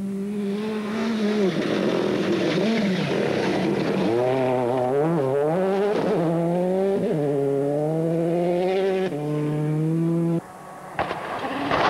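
Rally car engine at full throttle on a gravel stage, its pitch climbing and dropping through quick gear changes as the car passes. The sound dips briefly near the end, then picks up again.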